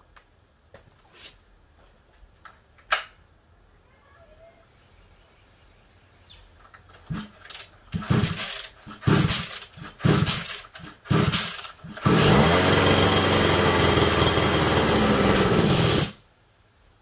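29cc two-stroke engine of a 1/5-scale Rovan LT RC truck being pull-started. First come a few faint clicks, then a run of short cranking pulls on the recoil starter. The engine then catches and runs for about four seconds before cutting out abruptly.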